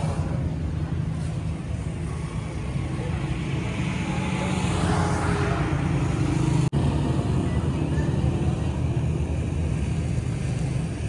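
Toyota Hilux pickup's engine running with a steady low drone, briefly cutting out about two-thirds of the way through.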